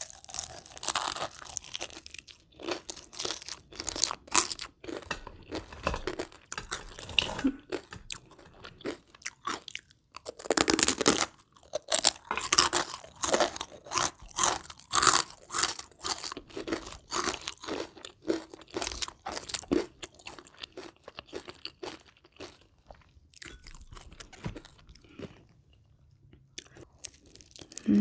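Crispy battered deep-fried chicken being bitten and chewed close to the microphone: irregular, crackling crunches, heaviest through the middle and thinning to softer chewing near the end.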